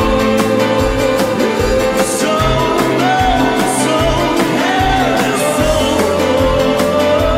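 Music: a song with a steady beat and a bass line.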